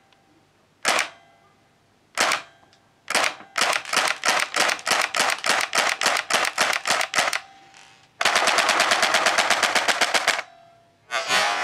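Tokyo Marui airsoft submachine gun firing BBs at a target. A couple of single shots are followed by a run of quick semi-automatic shots, about three a second, and then a full-auto burst of about two seconds. Another burst starts near the end.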